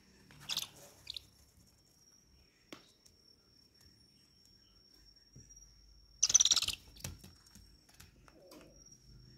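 Barn owl chicks giving two short, rasping hiss-screeches, a begging call, one about half a second in and a louder one about six seconds in. A steady high cricket trill runs beneath.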